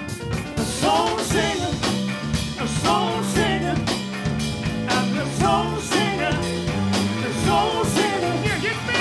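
Live R&B band playing, with drum kit, bass guitar, electric guitar and keyboards, and a voice singing over the groove from about a second in.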